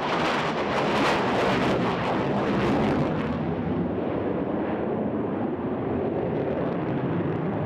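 Grumman F-14 Tomcat's twin jet engines in a loud, rushing flypast. About three seconds in, the high end of the noise fades and it becomes a duller rumble as the jet pulls away.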